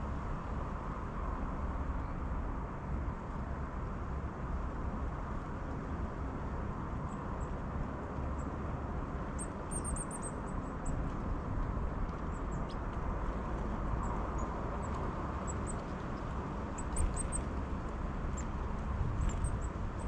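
Outdoor ambience: a steady low rumble, with faint, very high, thin bird calls in a short flurry about halfway through and a few more near the end.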